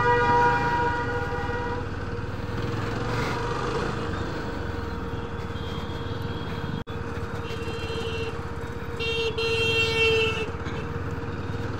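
Yezdi Scrambler's single-cylinder engine running steadily while riding through traffic, with road and wind rumble. Vehicle horns honk several times: one for the first couple of seconds, then short honks in the second half.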